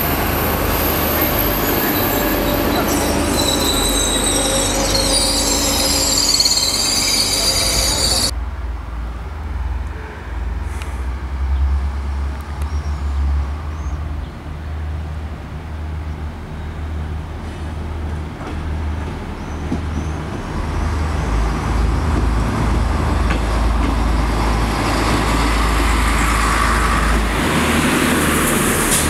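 A BGC (bimode AGC) regional train passing close, with high wavering wheel squeal over the running noise. After a sudden cut about eight seconds in, an X 72500 diesel railcar is heard as a low engine hum that grows louder as it approaches and passes close near the end.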